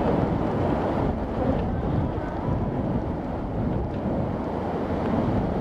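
Steady, even rumble of wind buffeting the microphone, mixed with the jet noise of an Airbus A330-300 landing on a wet runway.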